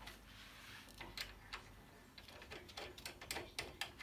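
Faint light metallic clicks and taps of ATV steering parts being handled as a tie rod end is fitted to the steering knuckle: a few isolated clicks at first, then several a second from about halfway.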